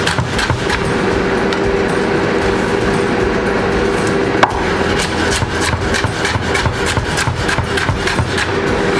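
Kitchen knife cutting vegetables on a chopping board: runs of quick taps and knocks, with one sharper knock about halfway. A steady hum runs underneath, from an air fryer cooking chicken.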